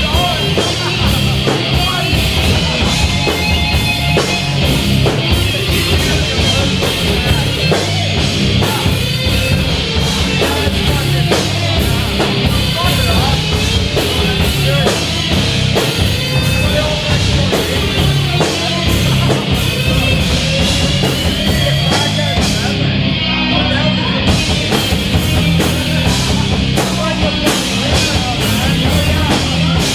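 Live rock band playing loud: distorted electric guitar, bass and drum kit with a steady beat.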